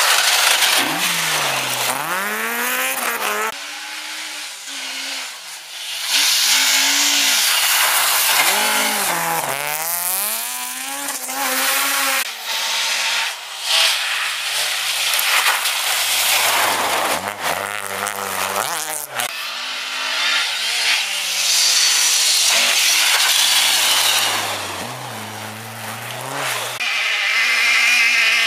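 Rally car engines revving hard through a snowy corner, cars passing one after another, the pitch climbing and dropping again and again as the drivers change gear and lift off, over a steady hiss of tyres on the snowy road.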